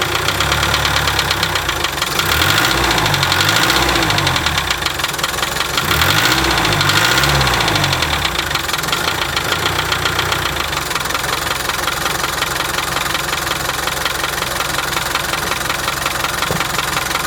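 Land Rover 300Tdi 2.5-litre four-cylinder turbodiesel idling with a steady knocking/ticking, revved up and back down twice, about two seconds in and again about six seconds in. The knock persists although the valve clearances have been checked twice and the vacuum pump has been replaced.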